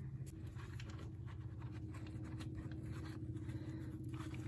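Faint scratchy rubbing and light scrapes from gloved hands working at a dirt bike's oil drain plug, with the phone being handled close by, over a steady low hum.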